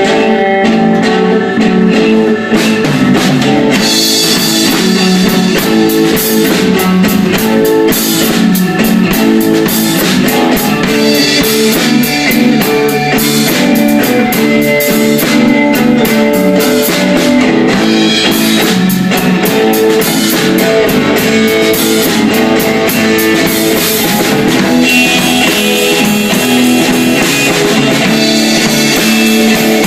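Live blues band playing: guitar and bass guitar carry the tune, and a drum kit with cymbals comes in about three seconds in and keeps the beat.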